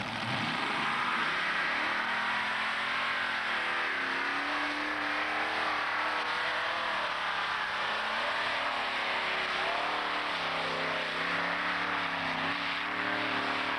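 Pulling tractor's engine at full throttle hauling the weight sled down the track, its pitch wavering up and down over a loud, rough running noise.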